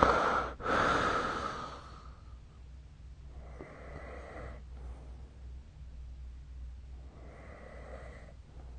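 Sleeper snoring: a loud two-part snore in the first two seconds, then two softer, quieter snoring breaths of about a second each, around four and seven and a half seconds in.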